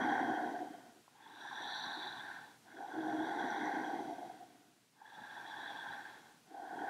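A woman breathing deeply and audibly, slow breaths in and out, each about a second and a half long with short pauses between them.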